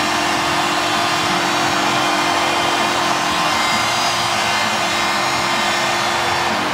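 Packed hockey arena crowd cheering loudly and steadily after a home goal, with the goal horn holding one steady low tone under the roar until it cuts off near the end.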